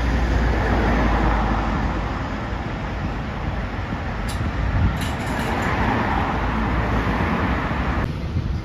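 Road traffic with a double-decker bus pulling away, its low engine rumble strongest at first and easing after a couple of seconds as it draws off, over steady tyre and engine noise from cars. The sound changes suddenly near the end.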